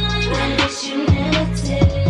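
Music with a steady beat and deep bass notes; the bass cuts out briefly near the middle.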